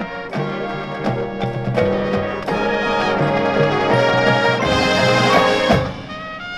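A high school marching band plays its field show, a full band of brass and percussion with a moving low line beneath. It builds to its loudest passage, then cuts back suddenly to softer held high notes about six seconds in.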